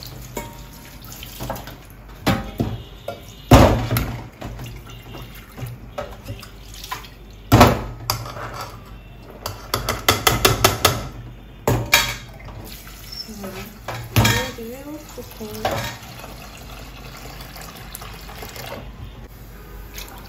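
Tap water running into a stainless steel sink as a nonstick pot is rinsed, with sharp clanks of the pot and a metal mesh sieve against the sink. About halfway through, a quick rattle as washed beans are tipped from the sieve into the pot.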